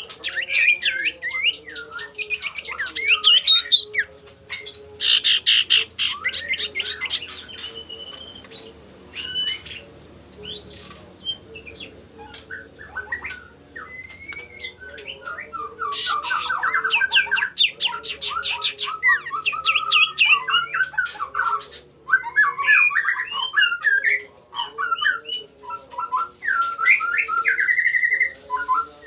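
Common iora (cipoh) calling steadily: a mix of fast rattling trills and varied chattering, squawky phrases repeated throughout. This is the bird's challenge call toward a rival.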